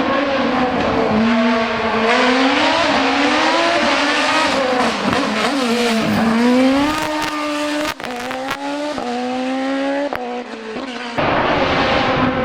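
Race car engine revving hard and easing off again and again, its pitch rising and falling as the car accelerates and slows through the slalom course.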